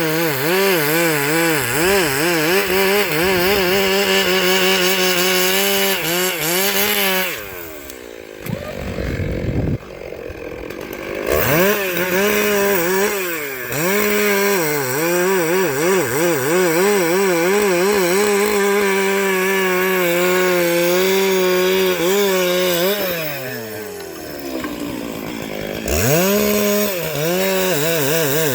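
Chainsaw running at high revs, its pitch wavering as it cuts wood. Twice, about a quarter of the way in and again near the end, the engine drops back and then revs up again.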